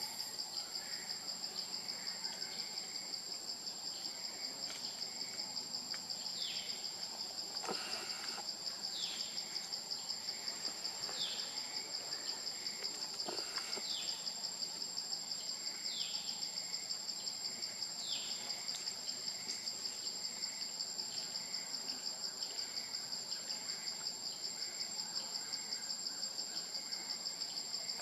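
Steady, high, pulsing insect chorus. Through the middle, a bird repeats a short falling whistle about every two seconds.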